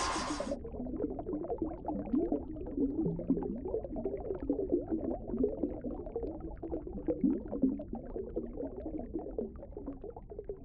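Underwater bubbling sound effect: a steady stream of small bubbles gurgling and popping, slowly fading. A louder rushing noise cuts off about half a second in.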